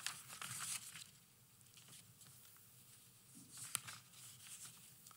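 Sheets of paper rustling as they are handled and turned. One spell of rustling comes in the first second and another about four seconds in, starting with a sharp tick.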